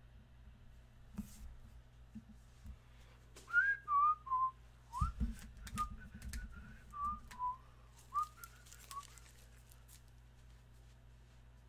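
A person whistling idly: a string of short, sliding notes for about five seconds, starting a few seconds in, with a few light knocks and handling clicks.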